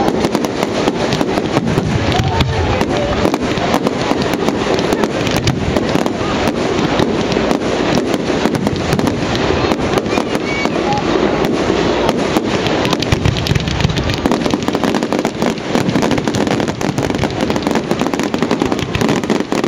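Fireworks display: a dense, unbroken barrage of rapid crackling bangs.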